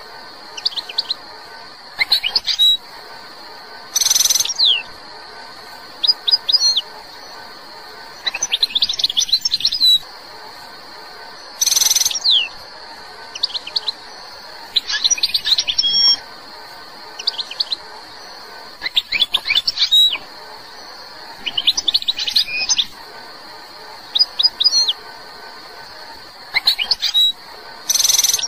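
Algerian goldfinch singing: short phrases of quick, twittering high notes every couple of seconds, with pauses between. A few loud, harsh notes come about 4 s, 12 s and near the end, over a faint steady high hiss.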